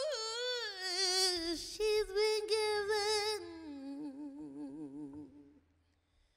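A woman's solo singing voice in a wordless run of sliding notes, stepping down to a lower note held with wide vibrato that fades out near the end.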